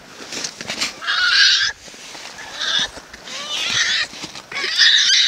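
Black bear cubs squalling in distress in the den: about five loud, harsh, wavering bursts, each up to about a second long.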